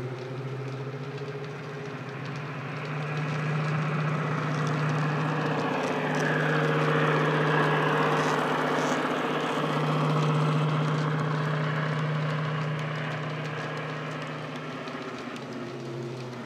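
The sound decoder in a Bachmann Class 55 Deltic model plays Legomanbiffo's Napier Deltic diesel engine sound through an EM2 speaker: a steady engine drone. It grows louder as the model runs past about halfway through, then fades toward the end.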